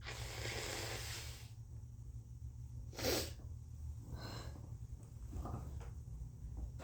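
A woman sneezes once, sharply, about three seconds in, set off by tickling her congested nose with a tissue. A long breath in comes before it, and a few short, weaker breathy sounds follow.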